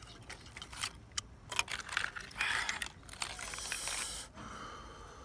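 Cooked shellfish shells clinking and scraping against each other and the pan as fingers pick through them, with a run of sharp clicks in the first two seconds.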